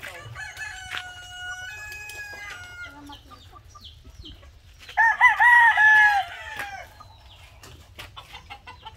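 Native roosters crowing: a fainter, drawn-out crow in several steps over the first three seconds, then a loud crow about five seconds in, lasting about a second and a half.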